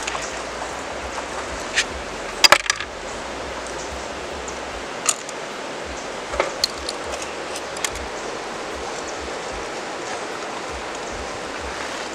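Steady rush of a river, with a few sharp clicks and clinks of river snail shells knocking against each other and the pot, the loudest a quick double click about two and a half seconds in.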